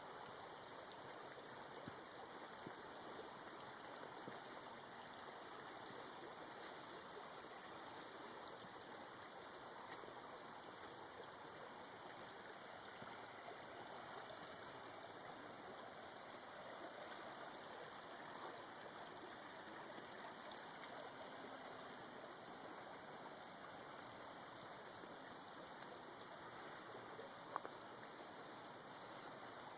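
Faint, steady rush of a creek's running water, with a single sharp tick near the end.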